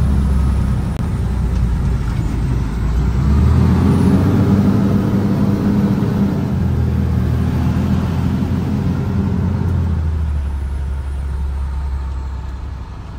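Truck engine heard from inside the cab while driving, its pitch rising as it speeds up a few seconds in and dropping back again near ten seconds in.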